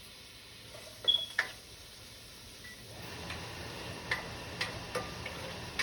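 Light, scattered clicks of a cooking utensil against a pan, with a faint sizzle of onions frying in oil coming up about three seconds in.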